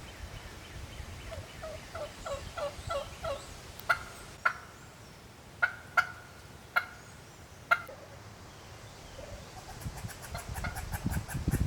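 Wild turkey hen yelping: a quick series of about eight short notes, then six sharp single clucks spaced out over a few seconds. A low rumbling noise builds near the end.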